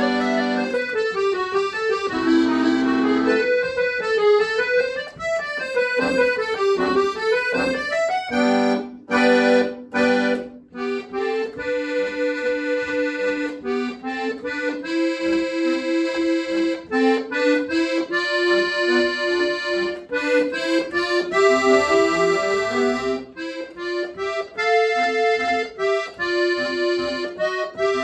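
Solo piano accordion playing a classical-style piece: quick running note passages for the first eight seconds, a couple of short breaks around nine to ten seconds in, then a melody over held chords.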